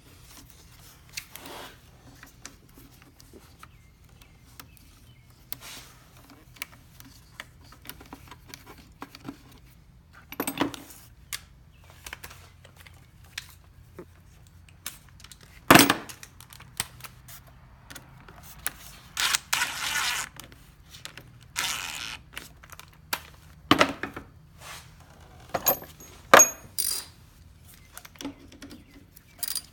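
Scattered metallic clinks, taps and knocks of hand tools and small parts being handled while putting parts back on an ATV, with quiet gaps between them and one sharp knock about halfway through.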